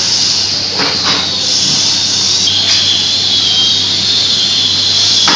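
Sliding-table panel saw running with its blade spinning free, a steady high-pitched whine, and a couple of short scrapes from wood being handled about a second in.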